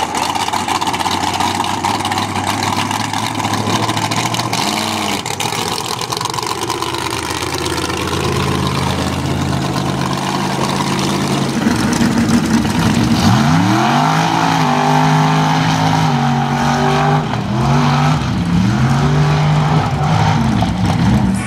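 Lifted mud truck engines running loud. In the second half an engine revs up and drops back several times in quick succession as it is pushed hard.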